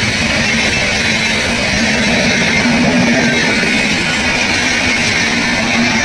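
Train wheels running on the rails close by: a loud, steady rushing noise with a fast, dense rattle and a steady low hum underneath.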